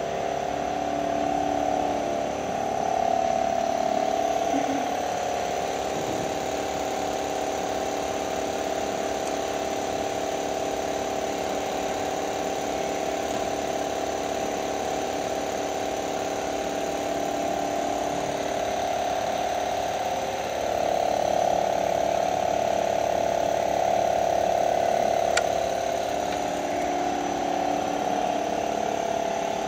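Bode longitudinal seam welder running: a steady, fast rattling mechanical buzz with a strong mid-pitched hum, swelling louder twice, and one sharp click near the end.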